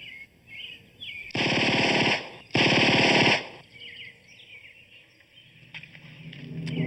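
Two bursts of automatic gunfire, each a rapid string of shots about a second long, the first starting over a second in and the second following after a short gap.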